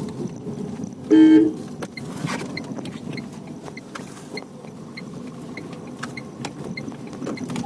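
Cabin noise inside a moving Tata Tiago on a cement road: a steady hum of tyres and its three-cylinder engine. About a second in, a short horn toot sounds. A faint ticking then repeats about every half second.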